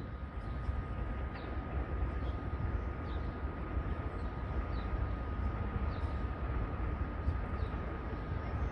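Low, steady rumble of an electric train approaching from a distance, with a faint steady high whine and a few faint bird chirps.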